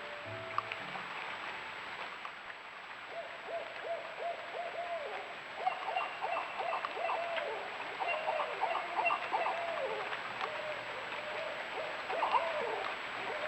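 Several barred owls calling together in the woods: overlapping hoots and wavering, cackling calls that build up from about three seconds in and run on through the rest.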